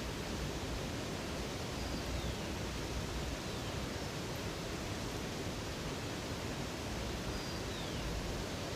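Steady rushing of a river or waterfall, with a few faint, thin, falling bird whistles over it.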